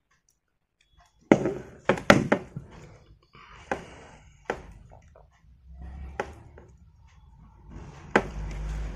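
A series of sharp clicks and knocks as wires are twisted together and connected to a car air-horn compressor motor, with a low rumble building near the end.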